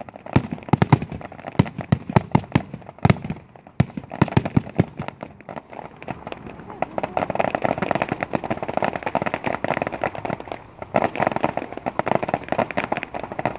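Fireworks going off. For the first few seconds there are separate sharp bangs, then from about six seconds a dense crackle of many rapid pops.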